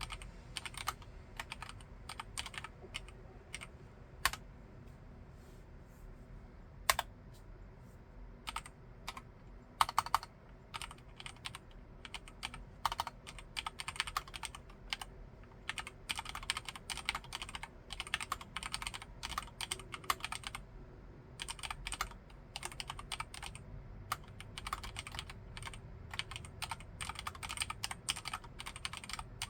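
Typing on a Filco Majestouch Xacro M10SP mechanical keyboard with linear Cherry MX Red switches. Keystrokes come sparse and irregular at first, with a few single louder strikes, then turn into steady continuous typing from about halfway through.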